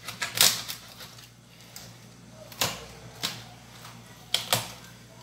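Kitchen knife cutting raw chicken and knocking on a wooden cutting board: irregular sharp knocks, a quick cluster in the first second and a few more spread out after.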